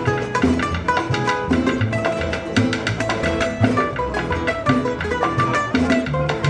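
Live Cuban son played on a Cuban tres and an acoustic guitar, with bongos played by hand keeping a steady rhythm.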